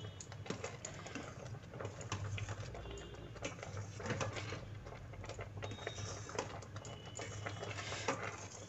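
A metal spoon scrapes and clinks irregularly against the inside of a stainless steel pot while stirring thickened milk rice pudding (payesh). A low steady hum runs underneath.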